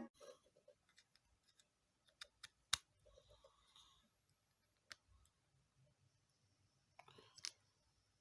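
Near silence broken by a few faint, scattered clicks and taps, the sharpest about three seconds in and a small cluster near the end.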